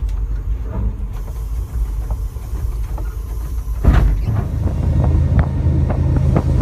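Locomotive rumbling low under way, with one loud bang about four seconds in as it strikes a fallen tree, followed by a heavier rumble and scattered cracks and knocks of branches against the train.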